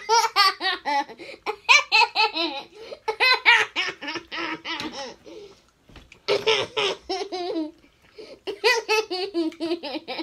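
A young girl laughing hard: rapid, high-pitched peals of laughter in three long bouts.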